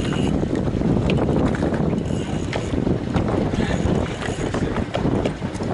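Wind buffeting the microphone over open water, with water slapping against the hull of a fishing boat, a steady rough rumble with small splashes.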